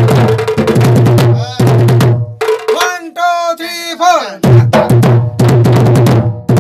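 Sambalpuri nisan drum beaten hard in a fast, driving rhythm, each stroke with a deep boom. The drumming breaks off for about two seconds in the middle, where a wavering pitched sound glides up and down, then the drumming resumes.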